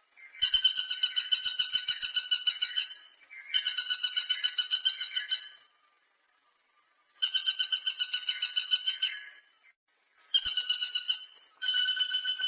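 Woodpecker calling: a fast, even series of high, repeated notes, about nine a second, given in phrases about two seconds long with short pauses between, five times.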